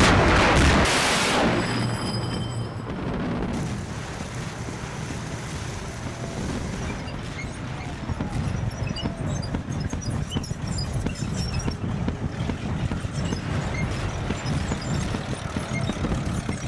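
An explosion-like blast right at the start, then a steady rumbling battle noise with scattered crackles.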